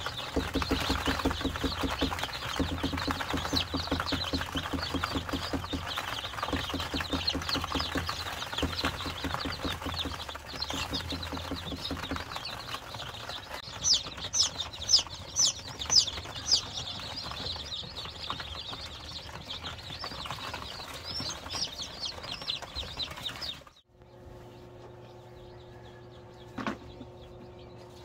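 A brooder full of newly hatched upgraded native chicks peeping constantly, many high chirps overlapping, with a run of louder peeps around the middle and a low pulsing hum underneath in the first half. The chirping cuts off suddenly near the end, leaving a steady hum and a single click.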